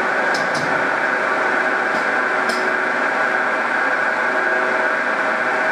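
End mill on a milling machine cutting into a metal brake caliper mount: a steady machining noise with a held high whine, and a few sharp ticks about half a second in and again near the middle.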